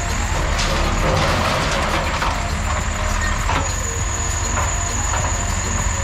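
Road noise of a vehicle on the move: a steady engine and wind rumble with a few sharp knocks, and a thin, high, steady whine over it.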